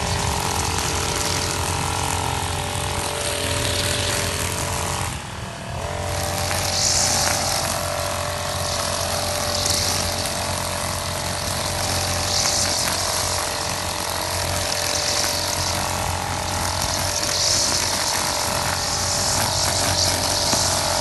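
Krisbow brush cutter engine running steadily while its nylon trimmer line cuts grass. A high hiss swells about every two and a half seconds, and the sound drops briefly about five seconds in.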